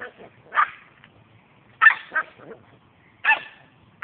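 Boston terrier barking at a lawn sprinkler: three short yapping barks about a second apart, the middle one trailing off into a couple of smaller yips.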